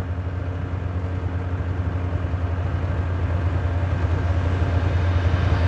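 Two-stroke snowmobile engine running with a steady, low, pulsing hum that grows gradually louder as a sled approaches across the snow.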